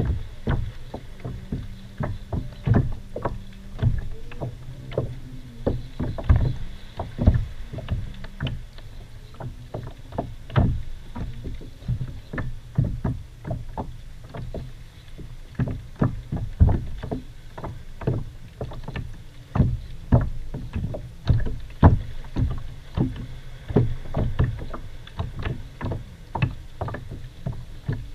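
Water slapping and knocking against the hull of a kayak in irregular, short knocks, about one or two a second, over a steady low rumble.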